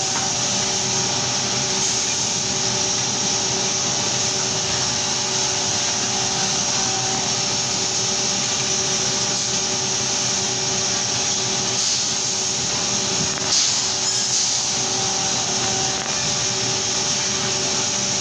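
CNC metal bending machine running with a steady machine hum and hiss, holding a few steady tones. A short louder hiss comes about two-thirds of the way through.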